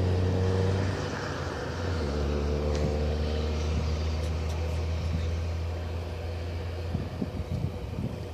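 Engine of a road vehicle running with a steady low drone that eases down slightly after a second or two, a faint higher steady tone over it in the first few seconds.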